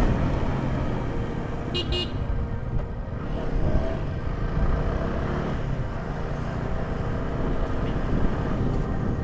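Motorcycle riding noise in traffic: a steady wind rumble on the microphone with engine and road noise, and a short double horn beep about two seconds in.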